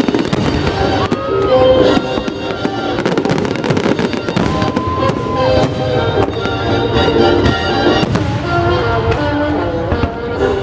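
Aerial fireworks display going off in a dense run of bangs and crackles, with music playing at the same time.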